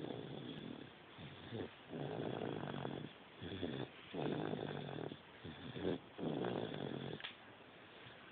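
A baby boy snoring: about six snores, short ones alternating with longer ones at roughly one a second, then a pause near the end.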